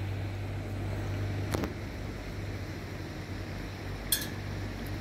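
Steady low outdoor rumble, with a short click about a second and a half in and another near four seconds in that carries a brief high chirp.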